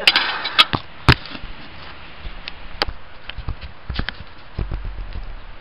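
Handling noise: a few sharp clicks and knocks in the first second or so, then scattered lighter clicks and a couple of low thuds.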